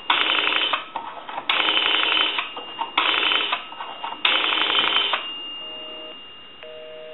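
A three-slot payphone being dialed: four bursts of rapid clicking, each under a second long. About two-thirds of the way in, a busy signal follows in the handset audio, two half-second beeps with half-second gaps: the called line is busy.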